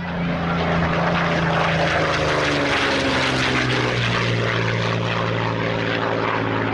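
Propeller aircraft engine droning steadily, its pitch dropping about halfway through as it passes.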